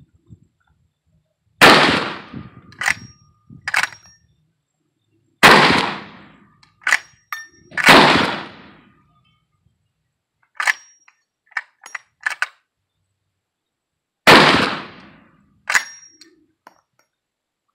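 Winchester Model 1887 12 gauge lever-action shotgun firing four black-powder brass shells: four loud blasts, the second and third close together and the last after a longer pause. Between the shots come short metallic clacks of the lever cycling the next shell from the magazine.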